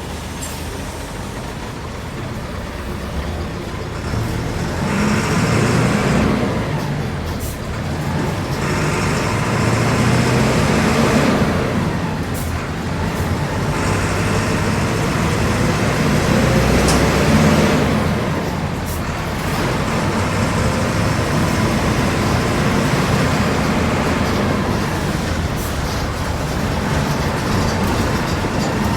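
Diesel engine of a Volkswagen 15.190 EOD bus running under way, the sound swelling and falling back about three times in the first two thirds, then running steadily.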